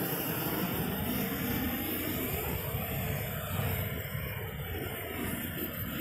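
Gas-fired roofing torch burning with a steady rush of flame, heating the bitumen of an APP waterproofing membrane roll as it is torched down.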